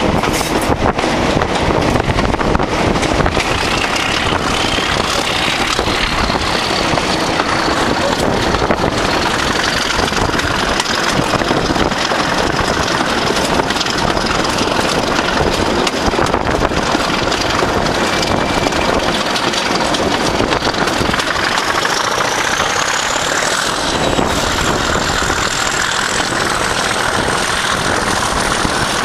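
Class 37 and Class 26 diesel locomotives double-heading a train under power, heard from an open carriage window with wind rush. The engines run steadily and hard, with a high whistle that climbs in pitch about three seconds in and again near the end.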